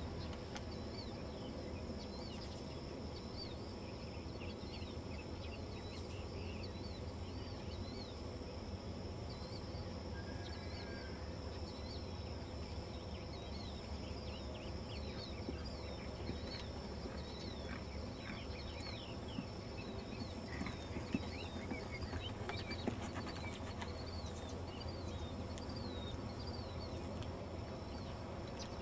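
Many small birds chirping, short arched chirps that keep coming throughout, over a steady low hum. A few sharp knocks stand out in the second half.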